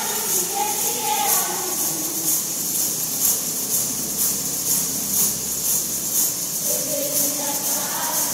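Timbrels (tambourines) shaken and struck in unison by a line of performers, their jingles ringing in a steady beat. Voices sing along near the start and again near the end.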